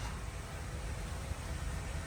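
A low, steady mechanical hum and rumble, with no cutting or impacts.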